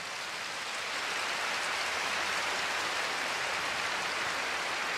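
Large arena crowd applauding, a dense, even clapping that swells slightly about a second in.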